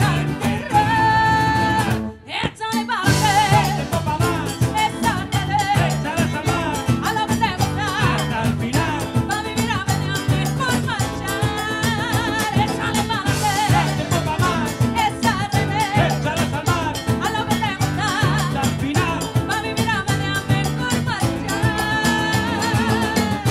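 Live salsa band playing, with a woman singing over acoustic guitar, congas, electric bass, cajón and violin. The music breaks off for a split second about two seconds in, then comes back in.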